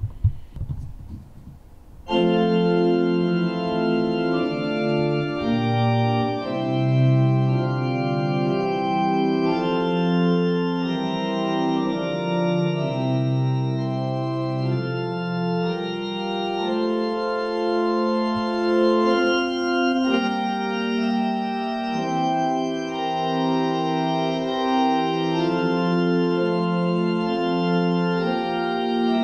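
Organ playing full held chords that change every second or two, starting abruptly about two seconds in. It is the organ music closing the church service, and it follows a brief low bump at the very start.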